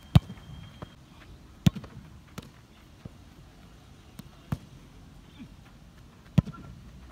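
Sharp thuds of a football being kicked and struck: a loud one a moment in, another about a second and a half later, and a loud one near the end, with a few fainter knocks between.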